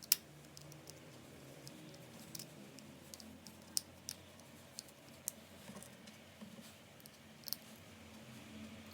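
Small parts of a 1:18-scale RC truck rear axle being handled during assembly: scattered light clicks and taps, the loudest right at the start, over a faint low hum.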